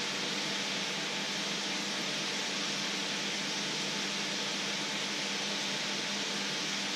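Fat sizzling in a black steel wok on the hob: a steady, even hiss, with a faint low hum underneath.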